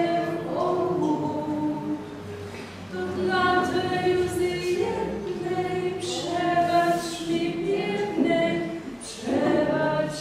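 Voices singing a slow song without instruments, in long held phrases, with short breaks about two seconds in and near the end.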